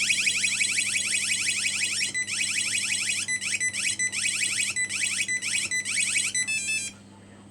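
Wireless intruder alarm siren sounding after being triggered: a rapid series of rising electronic sweeps, changing about two seconds in to a broken, pulsing tone, with a short stepped tone just before it cuts off near the end.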